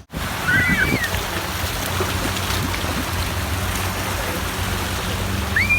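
Steady rushing noise of sea water with a low, even hum underneath, and a short wavering call or shout near the start and again near the end.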